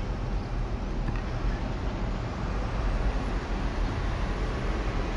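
Steady outdoor background noise: a low rumble under an even hiss, of the kind road traffic makes, with no distinct events.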